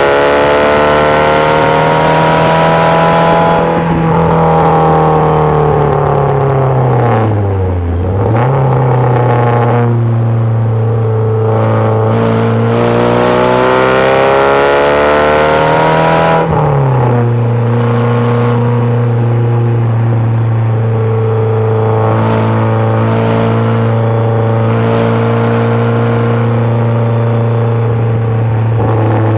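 Ford 2.0 Zetec four-cylinder engine of an MG Midget at racing speed, heard from the open cockpit. Its pitch sinks about seven seconds in, then climbs steadily as it pulls through a gear. At about sixteen seconds it drops sharply with a gear change and then holds steady.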